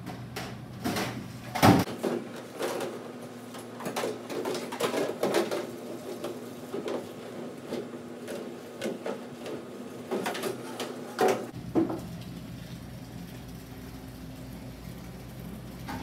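A steel hotel pan being scrubbed and handled in a stainless steel sink: irregular scrubbing with clunks and knocks of metal on metal, loudest a little under two seconds in and again near eleven seconds, over a steady low hum. The knocking dies away about twelve seconds in.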